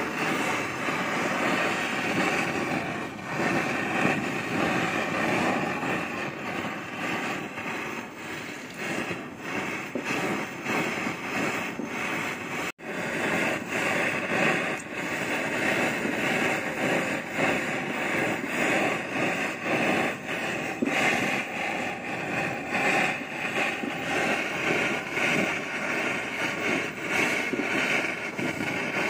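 Gas torch flame roaring steadily as it melts gold, with one brief break about halfway through.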